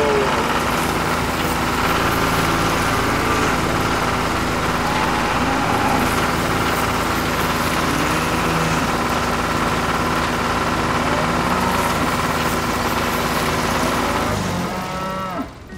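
Engine running steadily at an even pitch, fading out near the end.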